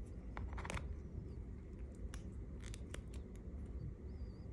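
Stiff plastic joints of a Marvel Legends Iron Man Mark LXXXV action figure clicking as its limbs are bent by hand, a scatter of small irregular clicks and handling noise.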